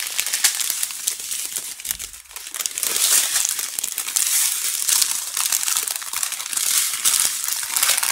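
Clear plastic bags of diamond painting drills crinkling as they are handled and gathered up, with many small crackles. The crinkling dips briefly about two seconds in and is louder from about three seconds in.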